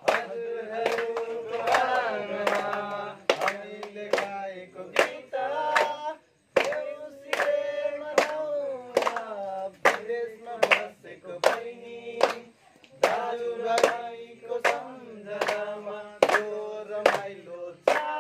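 A group of young men singing a Nepali Deusi (Tihar) song together while clapping in time, about two claps a second. The singing breaks off briefly about six seconds in.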